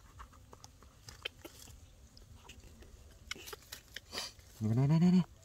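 Baby monkey eating banana fed from a spoon: small, soft smacking and chewing clicks. Near the end, a man's voice sounds briefly and louder, with a drawn-out rising-then-falling pitch.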